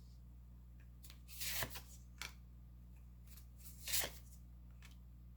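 Tarot cards being drawn and laid out: three short swishes of card on card, about one and a half, two and four seconds in, over a faint steady hum.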